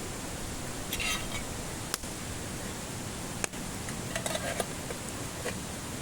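Wood campfire burning: a steady hiss with short crackles and a few sharp pops, the clearest about two and three and a half seconds in.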